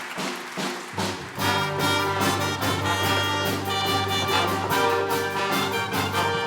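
Live band with brass striking up an upbeat instrumental intro: a few sharp drum hits, then the full band comes in about a second in over a steady bass line.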